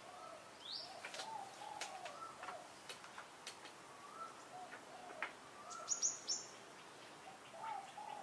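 Garden birds calling over and over in short, arching chirps, with scattered sharp clicks and taps; the loudest cluster of clicks comes about six seconds in.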